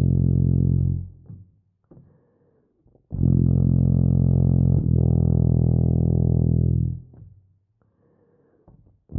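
Tuba playing slow, low long tones: a held note that ends about a second in, a breath pause, then a note that slurs to a second one about five seconds in and is held to about seven seconds. After another pause the next note starts right at the end.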